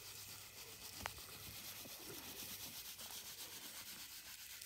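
Dry straw chaff (bhusa) pouring and rustling down onto a steel leg-hold trap set in the soil, a faint steady hiss, with a single click about a second in.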